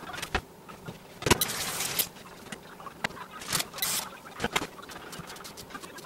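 Kitchen handling sounds: plastic or paper packaging rustling and crinkling in two short stretches, among scattered clicks and knocks of items and dishes being picked up and set down.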